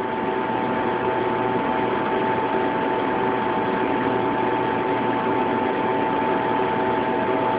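Steady hum of running machinery, with several constant tones over an even noise; the most prominent is a mid-pitched whine.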